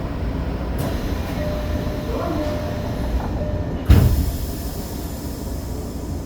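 Tokyo Metro 05 series electric train running, a steady rumble of wheels on rail, with a sudden loud rush about four seconds in that fades over the next two seconds.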